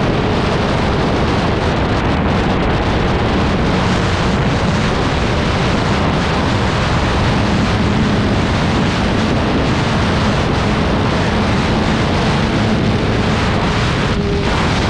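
Heavy wind rushing over the microphone at riding speed on a Yamaha R6 sport bike, with the inline-four engine's steady drone faintly underneath.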